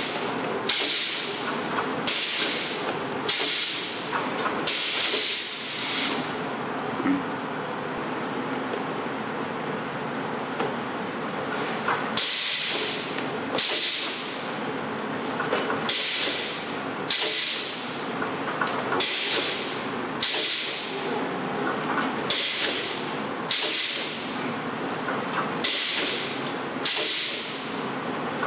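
Athena Combi shrink-wrapping machine running as it wraps CD/DVD cases in shrink film: a steady mechanical running noise with a thin, steady high tone. Over it come short, sharp hisses of air about once a second, which stop for several seconds about a quarter of the way in and then resume.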